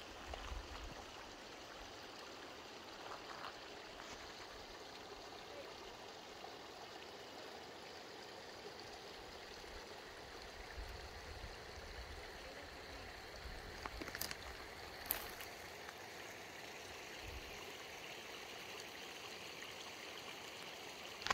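Small mountain stream trickling over a cliff edge into a little waterfall, a steady, faint rush of running water at low flow. Two sharp clicks sound briefly a little past the middle.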